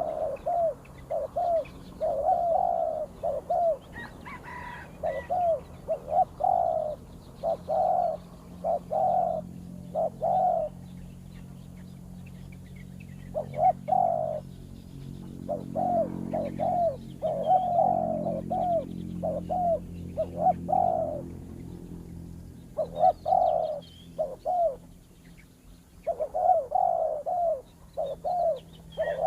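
Spotted doves cooing in repeated runs of short phrases with brief pauses between them, more than one bird calling as a wild dove answers a decoy call bird used for luring.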